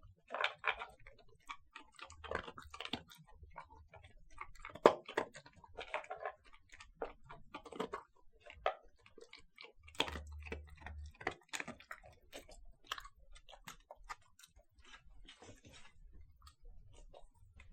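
Dog eating dry kibble from a plastic bowl: irregular crunches and clicks of kibble and bowl, thinning out and getting fainter over the last few seconds.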